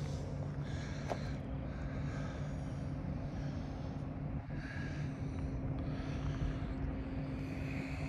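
Steady low hum of an idling engine, with soft breathy rushes coming and going over it.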